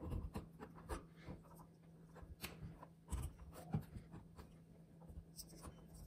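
Faint scratching, rustling and small clicks of pliers and stiff electrical wires being handled inside a wall switch box as the neutral wires are pulled out from under a wire nut.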